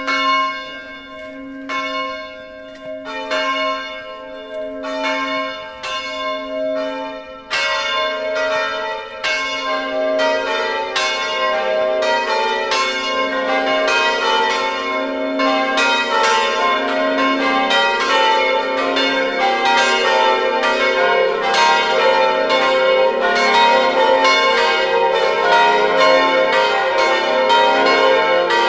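The electrically swung bronze bells of the Collegiata of San Gimignano, cast by De Poli, ringing a festive full peal: one bell swings alone at first, further bells join about three and seven seconds in, and the sound fills into a dense peal of several bells, with a deeper bell joining about two-thirds through.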